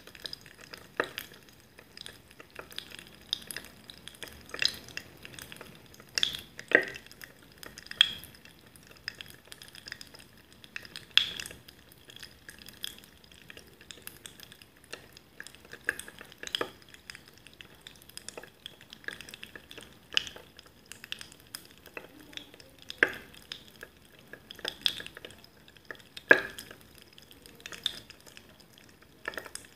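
Carbonated liquid fizzing in a glass mug: a constant patter of tiny bubble pops and crackles, with a sharper, louder click every few seconds.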